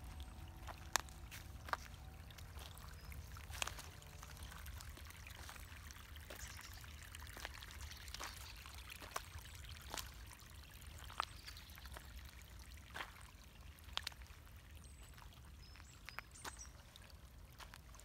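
Shallow spring water trickling steadily over a dirt path, with irregular sharp clicks scattered through it.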